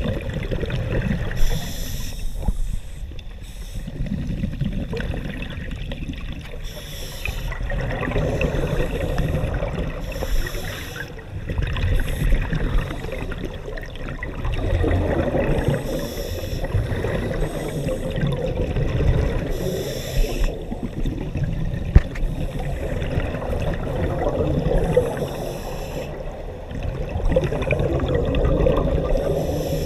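Scuba breathing heard underwater through a camera housing: a short hiss of inhalation through the regulator every few seconds, between the low bubbling rumble of exhaled air.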